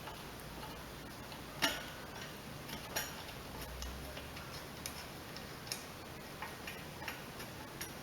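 Scattered, irregular light clicks and taps of metal tools and parts being handled while a lawnmower carburetor is bolted on, with one sharper knock about a second and a half in.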